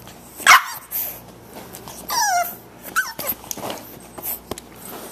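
Eight-week-old Boxer puppy vocalising for attention. It gives a short, sharp, high bark about half a second in, then a wavering cry that falls in pitch about two seconds in, with a few smaller yips after.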